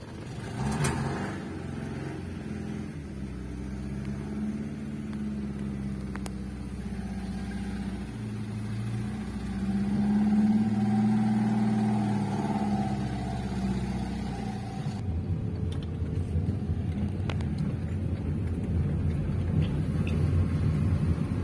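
Car engine running and pulling away at low speed, heard from inside the cabin, its pitch rising and falling. There is a sharp knock about a second in, and from about fifteen seconds in a rougher, louder low rumble takes over.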